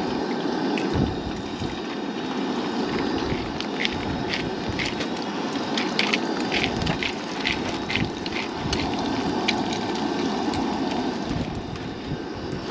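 Wind buffeting the microphone over a steady rushing noise while eggs fry in a pan on a camp stove. A scatter of short, sharp ticks runs through the middle.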